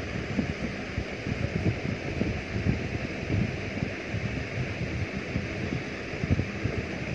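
Air buffeting a phone microphone: an uneven low rumble with small irregular thumps over a steady hiss.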